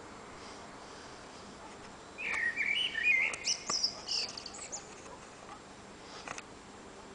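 Common blackbird singing from a high perch: one phrase about two seconds in, low fluting warbles followed by higher twittering notes, lasting a couple of seconds, with a faint extra note near the end.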